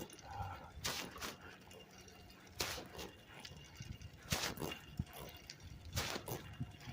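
Bicycle on the move: a short rushing scrape or rattle that comes back about every second and a half to two seconds over a low rumble.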